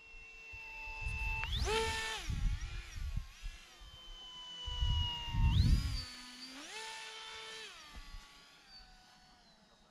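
Electric motor and propeller of a ZOHD Drift RC plane whining in flight, its pitch jumping up sharply as the throttle opens about a second and a half in and sliding back down. It surges again around the middle and falls away near the end, with low rumbles beneath the louder stretches.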